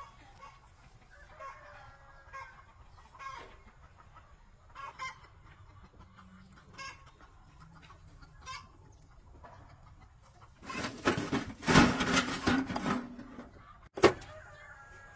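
Chickens clucking softly, then a rooster crows loudly about eleven seconds in, one call of about two and a half seconds. A sharp knock follows shortly after.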